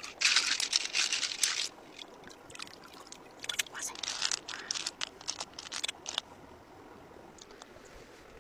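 Water splashing in short bursts, with a few sharp clicks, as hands work in a shallow stream. The loudest burst comes right at the start; it goes quieter for the last couple of seconds.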